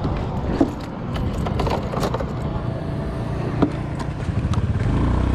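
Motorbike running, a steady low rumble with a few sharp clicks and rattles over it.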